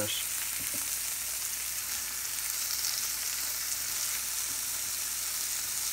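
Small pieces of yellowtail snapper fillet sizzling steadily in a hot cast iron skillet with butter, garlic and canola oil.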